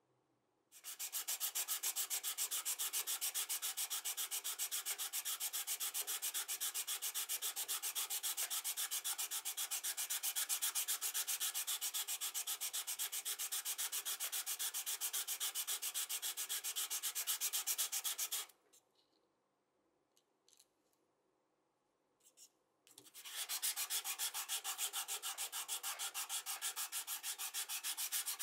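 A die-cast metal toy car body rubbed rapidly back and forth on a sheet of sandpaper, a steady rasping scrape of quick even strokes. The sanding stops for about four seconds partway through, with only a few light taps, then starts again.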